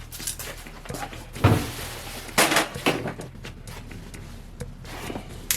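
A few scattered knocks and clatters of things being handled, the loudest a dull thump about one and a half seconds in.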